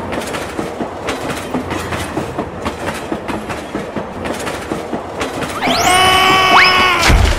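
Toy train running along its track with a steady clickety-clack clatter. About two-thirds of the way in, this gives way to a loud sound effect that sweeps up in pitch and then holds a chord of steady tones, followed by a short low boom near the end.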